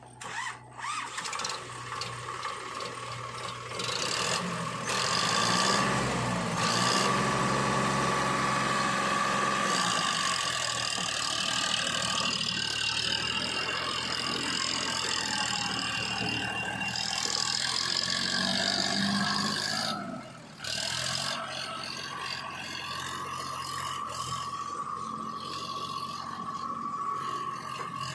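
Diesel engines of an earth-moving backhoe loader and tractor working, running steadily. The sound gets louder about four seconds in and dips briefly near twenty seconds.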